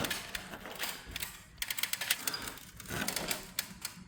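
Rapid, irregular clicks and light knocks, in clusters about one and a half and three and a half seconds in, as a wooden floor joist is knocked and worked deeper into its pocket in the wall.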